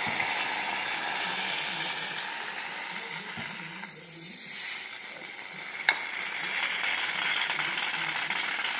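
Aerosol can of shaving cream spraying foam in a long, continuous hiss, easing off briefly about four seconds in, with a single click near six seconds.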